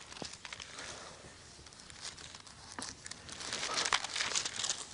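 Thin Bible pages being flipped by hand, a papery rustling that grows louder and busier in the last second or so.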